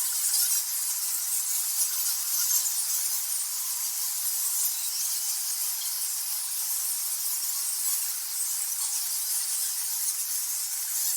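Many bats squeaking and chittering together as a dense, steady, high-pitched chatter.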